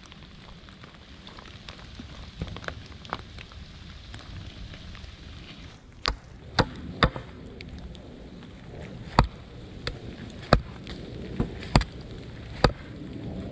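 Steady rain, and from about six seconds in a string of about nine sharp chopping strikes, irregularly spaced half a second to a second apart, with a few lighter knocks earlier.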